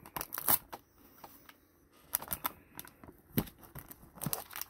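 Hard plastic trading-card holders clicking and tapping as gloved hands handle them, with a cluster of sharp clicks near the start and more from about two seconds in.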